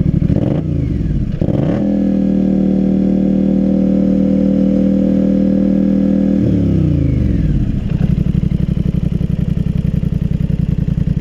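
Polaris Sportsman Highlifter 850's twin-cylinder engine, breathing through a Big Gun EVO U exhaust, blipped twice from idle, then held at a steady higher rev for about four seconds before dropping back to idle.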